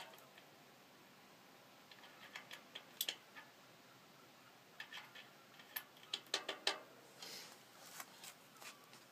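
Bicycle cassette sprockets and spacers being handled and slid onto the freehub body: a sharp metallic click at the start, then scattered light metal clicks and taps in small clusters.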